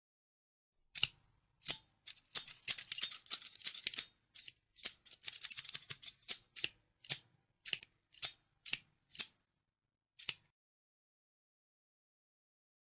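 Scissors snipping: after a second of silence, a fast run of crisp cuts, then single snips about half a second apart that stop about ten seconds in.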